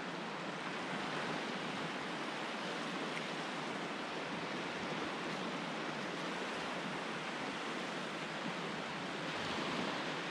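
Steady wash of surf breaking on the shore, an even hiss with no distinct strokes or pauses.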